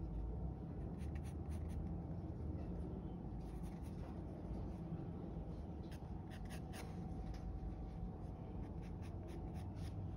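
Graphite pencil scratching across drawing paper in short shading strokes that come in bunches, over a steady low hum.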